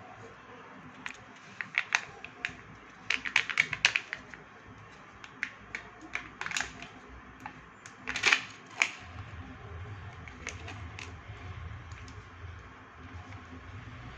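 Plastic packaging of Kinder Joy eggs being handled and opened: irregular sharp clicks, crackles and snaps, with a quick cluster a few seconds in and one louder snap past the middle.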